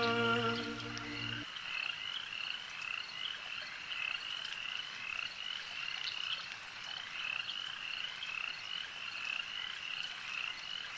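A held music chord stops about a second and a half in. After it, frogs keep croaking in a steady run of short, slightly rising calls, about two or three a second.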